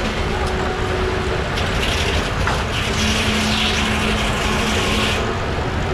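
Engine machinery running steadily, a dense noise with a faint held hum under it.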